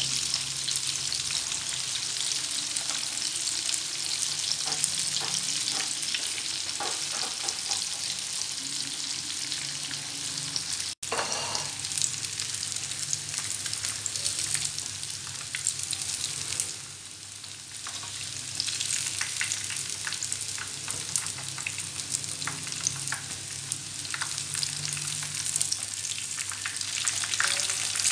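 Grated-potato and minced-pork fritters deep-frying in a pan of hot oil, a steady crackling sizzle as they are turned in the oil with chopsticks. The sound cuts out for an instant about eleven seconds in and dips quieter for about a second a little later.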